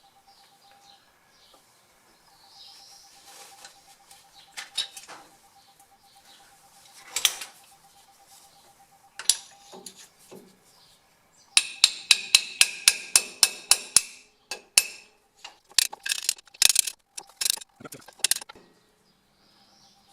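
Hammer striking a makeshift driver to seat a new pinion seal in a GM 10-bolt 7.5-inch rear axle housing. First a few separate knocks, then past the middle a quick even run of about a dozen ringing metal strikes in two seconds, then another cluster of strikes near the end.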